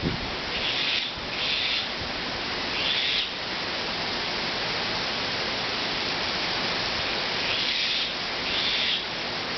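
Strong wind blowing: a steady rushing noise, with about five brief louder surges of high hiss.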